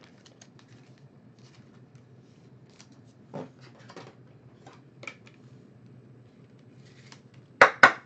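Trading cards and foil-wrapped packs handled on a tabletop: faint scattered rustles and light taps, then two sharp clicks close together near the end.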